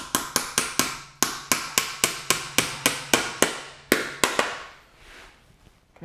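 Small hammer tapping a bent wire staple into a taxidermy form: a quick run of about nineteen light, sharp knocks, around five a second, stopping about four and a half seconds in.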